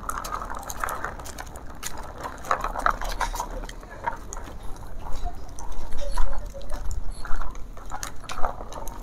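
Dog trotting on asphalt in a homemade PVC-pipe wheelchair: its front claws tap and patter irregularly while the small plastic wheels roll along behind, the taps growing louder about halfway through.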